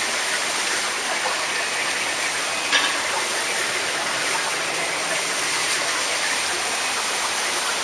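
Steady rush of water circulating through live seafood tanks, with one short click a little under three seconds in.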